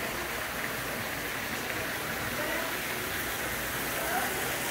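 Steady rush of water falling and splashing from an indoor water feature.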